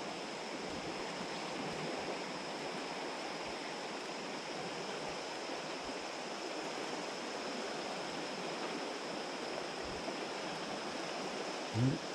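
Steady rushing of a shallow river's current flowing over riffles.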